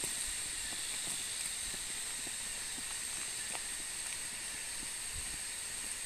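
Steady high-pitched drone of rainforest insects such as cicadas, holding an even shrill pitch without a break.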